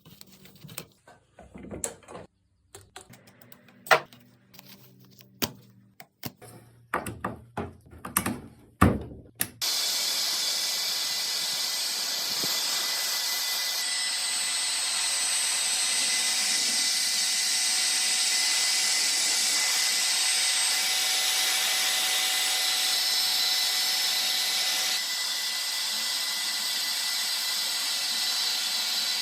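Scattered knocks and taps, then about a third of the way in an electric power tool starts abruptly and runs steadily with a high whine.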